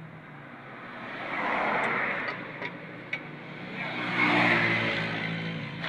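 Cylinder-head facing machine running with a steady motor hum, its cutting noise swelling up twice as the cutter passes across the head's surface, with a couple of light clicks.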